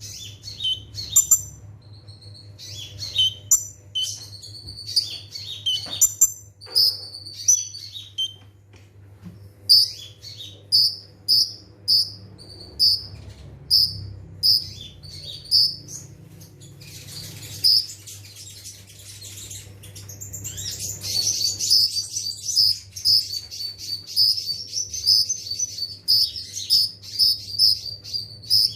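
Kolibri ninja (a sunbird) singing in high, sharp chirps. Scattered phrases give way to a run of evenly spaced chirps about two a second, then to a dense, rapid twittering song over the last third. A steady low hum lies underneath.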